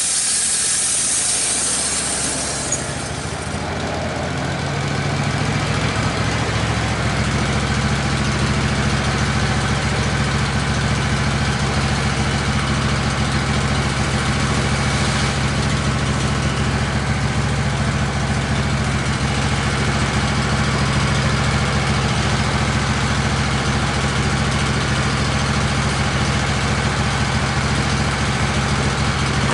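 Wood-Mizer LT15 band sawmill running with a steady engine hum. A high hiss stops about three seconds in, and the engine sound grows and then holds even for the rest of the stretch.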